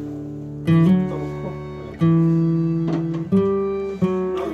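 Background music: acoustic guitar chords plucked and left to ring out, a new chord struck roughly every second.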